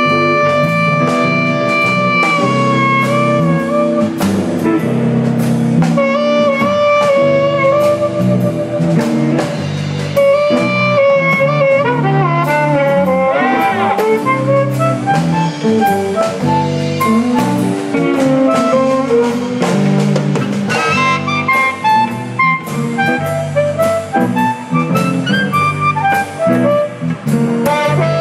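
Amplified blues harmonica played into a handheld microphone through Megatone ME18 amplifiers, over a drum kit keeping a steady beat. It opens on one long held note, then moves into phrases with bent, wavering notes.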